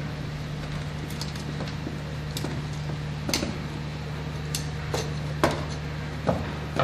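Scattered light clicks and small metallic clinks as wires are handled and fitted at the screw terminals of a rotary changeover switch, over a steady low hum.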